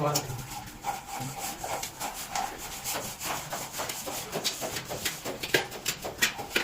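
Irregular scraping and rubbing strokes, mixed with scattered short knocks, with no steady rhythm.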